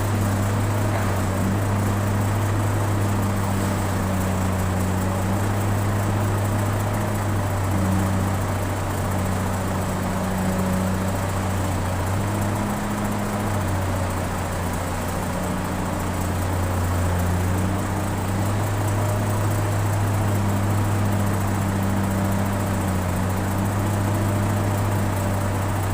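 Excavator's diesel engine running steadily with a low, even hum that eases off slightly for a moment about halfway through.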